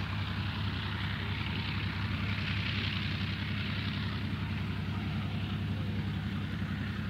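Steady low engine drone, with a hum and a hiss over it, that does not change.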